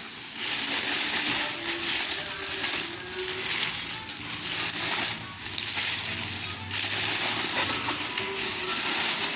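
Plastic packaging crinkling and rustling as a parcel is unboxed, in uneven handfuls about a second apart.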